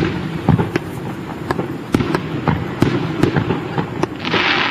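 Aerial fireworks bursting in quick succession, sharp bangs two or three a second echoing over one another, with a short burst of hissing crackle near the end.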